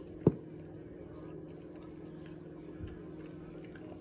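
Close-up eating sounds: faint wet chewing and mouth ticks of someone eating barbecue rib meat, over a steady low hum. A sharp low thump stands out about a third of a second in, with a softer one near the end.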